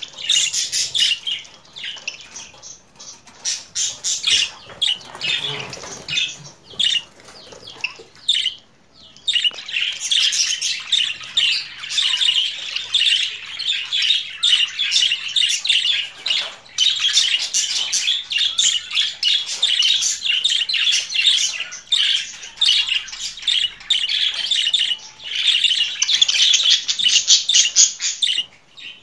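Budgerigar warbling and chattering: a fast stream of high chirps and squawks, broken and sparse at first, then dense and nearly continuous from about nine seconds in.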